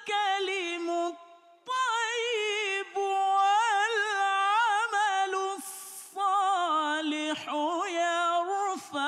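A man chanting the Quran in the melodic mujawwad style, in a high register: long held vowels with quick wavering ornaments, broken by a few short pauses for breath.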